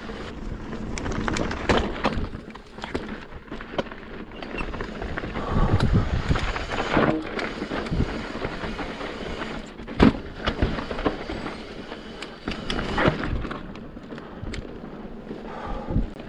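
Mountain bike rolling over rough rock trail: steady tyre and wind noise with frequent clattering rattles and knocks from the bike, the sharpest knock about ten seconds in.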